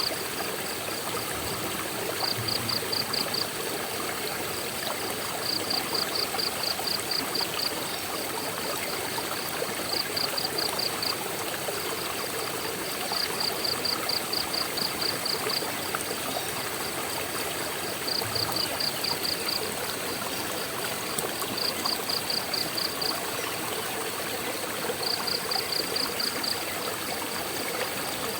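Waterfall water rushing steadily. Over it, a high, rapid pulsing call of about eight quick pulses in a second repeats every two to four seconds, eight times.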